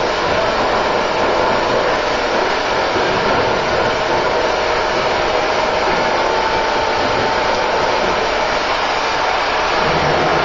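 Oxy-fuel cutting torch burning through steel supports under a ship's hull on the slipway before launch, giving a steady loud hiss with a faint steady tone in it.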